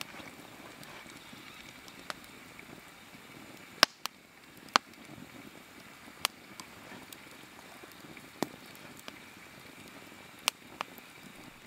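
Wood fire burned down to glowing embers, crackling with a steady low hiss and a handful of sharp pops scattered through, the loudest a little under four seconds in.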